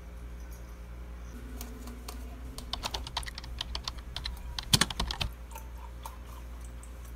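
Metal spoon stirring coffee in a tumbler: a quick, irregular run of light clinks and taps, with the sharpest one a little past the middle.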